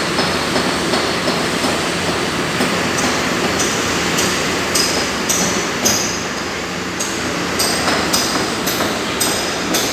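Mercedes-Benz OH 1626 coach's diesel engine running as the bus manoeuvres slowly. From about three seconds in, a short high beep repeats about every two-thirds of a second.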